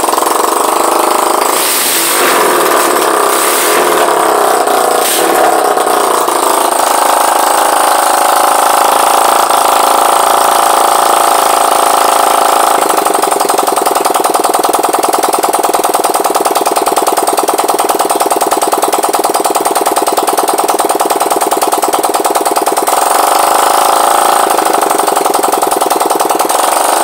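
Honda CG Titan 150's single-cylinder four-stroke engine running on its first start after a top-end rebuild, with no exhaust pipe fitted, so its firing comes straight out of the open exhaust port. Loud and uneven for the first several seconds, then it settles into a steady fast idle.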